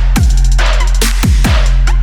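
Electronic dance music with a heavy sustained bass and a fast, driving kick-and-snare beat.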